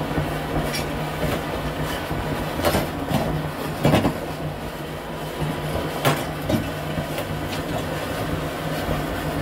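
Steady drone of a septic vacuum truck's pump running while the suction hose draws out the septic tank, with a few sharp knocks, the loudest about four seconds in.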